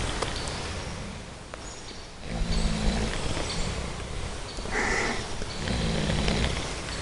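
Sleeping pot-bellied pigs snoring: two low snores about three seconds apart, each lasting about a second, with a short higher-pitched breath between them.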